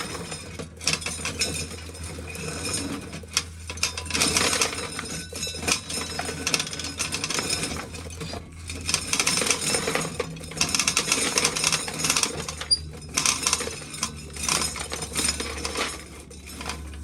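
Hand-cranked corn sheller stripping kernels from cobs, with a dense, irregular rattle and clinking of kernels. A steady low hum runs underneath.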